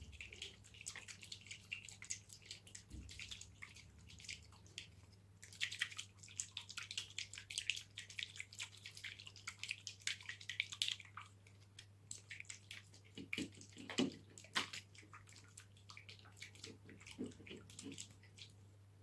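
Water with dissolved slime powder sloshing inside a closed plastic mixing container being shaken, a faint, rapid run of splashy ticks that swells and eases. A steady low electrical hum lies underneath.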